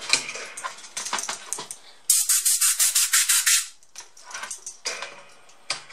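A paper tissue rubbed hard and fast against a surface: a burst of quick scrubbing strokes, about six or seven a second, for a second and a half near the middle, with softer rustling and handling around it.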